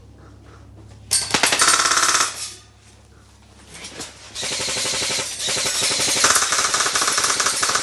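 Airsoft gun firing on full auto: a short burst about a second in, then a long sustained burst from about four and a half seconds on.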